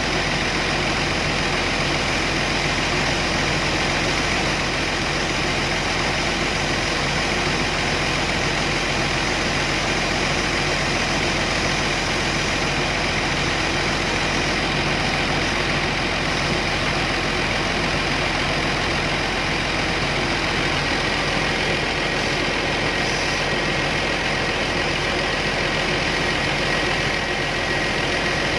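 Kobelco 850 excavator's diesel engine idling steadily, with a thin steady whine joining about two-thirds of the way in.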